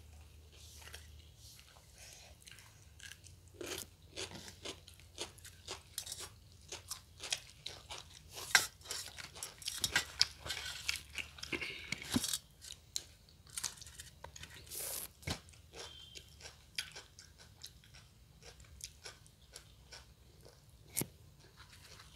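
Close-miked eating: moist chewing with many irregular crisp crunches and bites, busiest and loudest in the middle stretch.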